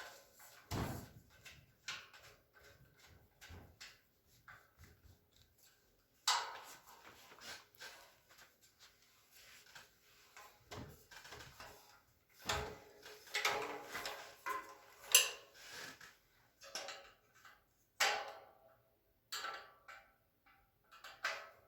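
Metal shelving parts clinking and knocking in irregular bursts of clicks and rattles as screws on the frame brackets are tightened by hand, the loudest knock about two-thirds of the way through.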